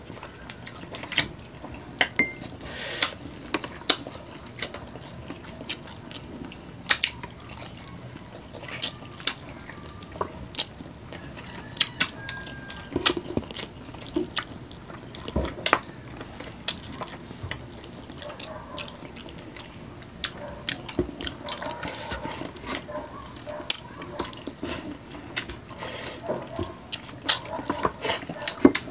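Two people eating saucy chicken feet adobo by hand, close to the microphone: wet chewing, lip-smacking and sucking at the soft skin and small bones, with frequent irregular sharp clicks.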